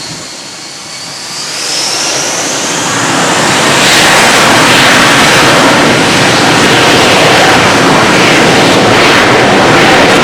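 Jet airliner's turbofan engines spooling up to takeoff thrust: a high whine rises in pitch, then a loud, steady roar builds and holds.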